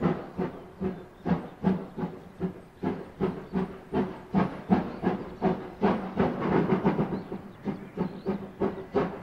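Steam locomotive chuffing, with rhythmic exhaust puffs about two to three a second and a steady hiss of steam.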